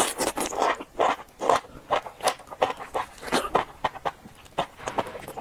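Close-miked eating: wet chewing and lip smacks over a mouthful of food, coming in quick irregular smacks about two or three a second.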